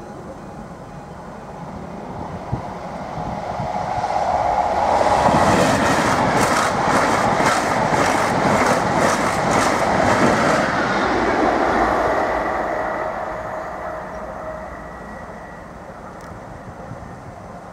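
A Class 90-hauled Mk3 passenger train passes at speed. It grows louder, gives a quick run of wheel clicks over the rail joints mid-way, then fades away.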